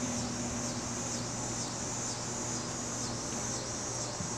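Steady outdoor background: a high, gently pulsing hiss over a low steady hum, with no distinct event.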